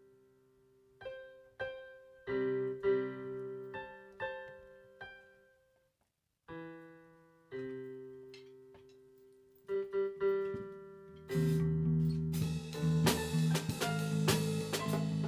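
Music: a keyboard plays slow, spaced chords that ring out and fade, with a brief pause about six seconds in. About eleven seconds in, drums and a fuller band come in.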